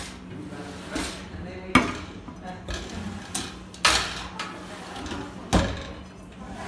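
Stainless steel wire basket pull-out drawer being slid open and pushed shut, the wire basket rattling and clanking against the cabinet as it stops, with several sharp knocks a second or two apart.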